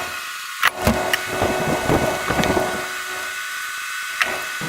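A few sharp metal knocks, with scraping and handling noise between them, as a new pin is driven through the detent roller into a 4th-gen F-body lower door hinge.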